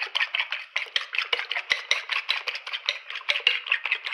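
Egg being beaten by hand in a ceramic bowl: a utensil clicks rapidly and evenly against the bowl, about seven strokes a second.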